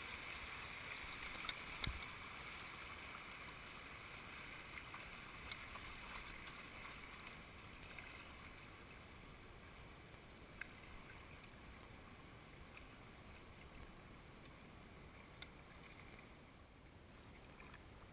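Shallow river rapids rushing and rippling past a canoe, the water noise fading as the riffle gives way to calmer water. A few sharp knocks, the loudest about two seconds in.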